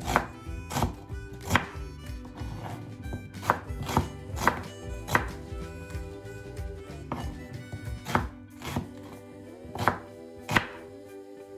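Kitchen knife chopping lemongrass on a cutting board: about a dozen uneven chops, roughly one a second, with a sparser stretch in the middle.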